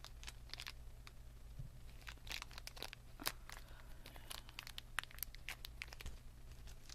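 Small plastic toy packets crinkling and tearing as they are opened by hand, with irregular crackles and a couple of sharp snaps, over a steady low hum.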